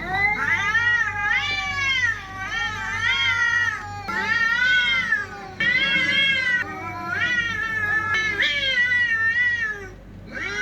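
Cat caterwauling: a run of long, drawn-out yowls that waver up and down in pitch, each lasting a second or two, with brief breaks between them. This is the aggressive yowling of cats squaring up to fight.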